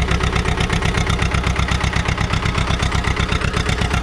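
Eicher 312 Super DI tractor's diesel engine running steadily at a set throttle, with a rapid, even beat. It is under load, driving a water pump off its PTO.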